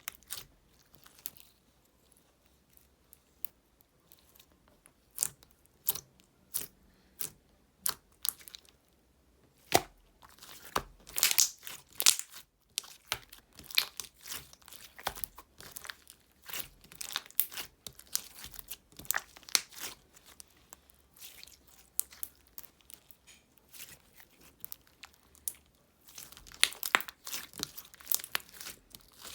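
Irregular crinkling and tearing crackles, close up: many sharp crackles in quick clusters, busiest about ten to thirteen seconds in and again near the end.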